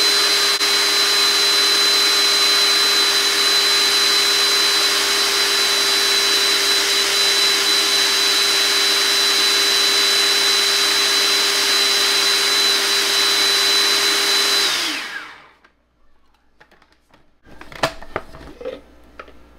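Hamilton Beach food processor running on high, churning sheep's-milk cream into butter: a loud, steady motor whine with a high tone that winds down in pitch and stops about three-quarters of the way through. A few clicks and knocks follow as the feed-tube pusher is lifted out.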